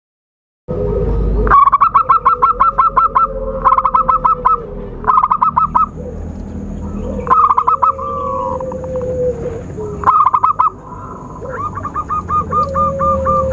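Zebra dove (perkutut) calling: repeated bursts of rapid staccato cooing notes, each burst lasting about a second, with a lower drawn-out note underneath several of the bursts.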